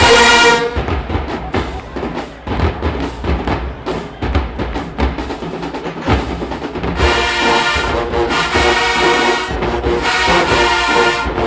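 Marching band playing: a loud brass hit, then several seconds of drumline and percussion beats, with the brass section coming back in on sustained chords about seven seconds in.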